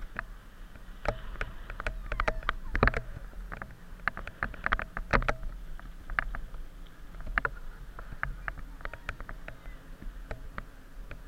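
Bicycle rolling over tarmac: a steady low rumble of tyres and wind, broken by frequent irregular sharp clicks and knocks from the bike's parts and drivetrain.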